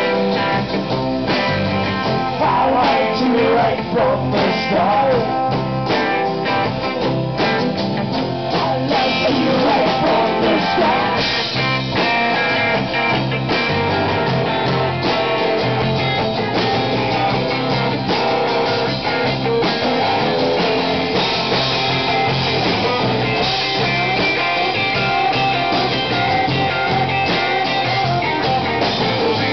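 A live rock band playing an instrumental stretch of a song: acoustic and electric guitars, bass guitar and drum kit.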